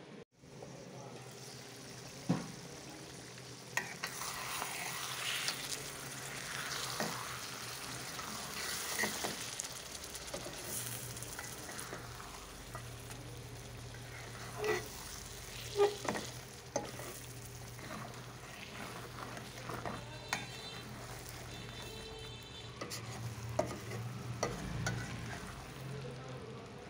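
Fish roe in spice paste sizzling and frying in a metal wok while a spatula stirs and scrapes it, with a steady frying hiss and now and then a sharp click of the spatula against the pan.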